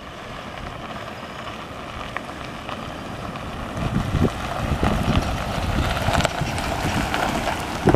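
GMC pickup truck towing a boat trailer driving up on a gravel road, its engine and tyres growing louder as it approaches and comes alongside, from about halfway in.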